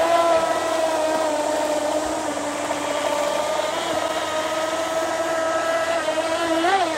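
Radio-controlled speedboat running at speed, its motor giving a steady high-pitched tone that rises and falls briefly near the end.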